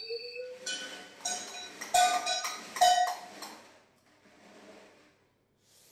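Metal objects clattering and ringing for about three seconds, with the two loudest strikes about two and three seconds in. A sliding tone dies away just before the clatter starts.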